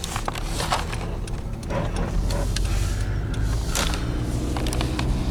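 A vehicle engine running steadily, with a low hum and scattered clicks and rattles over it.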